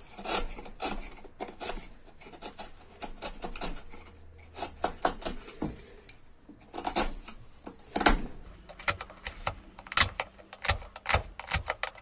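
Small steel hand tools (a screwdriver tip, then a wood chisel) scraping and picking crumbled particleboard out of a torn-out hinge cup hole: irregular scratches and clicks. The clicks come faster from about eight seconds in.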